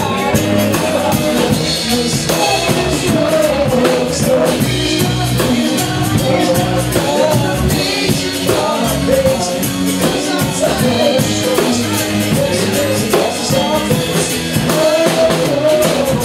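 Live band playing a pop-rock song: strummed acoustic guitar, electric bass and drum kit, with a man singing the lead vocal.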